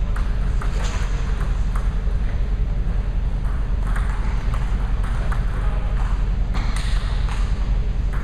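Table tennis ball clicking sharply off paddles and the table in a rally, the hits coming irregularly, over a steady low hum.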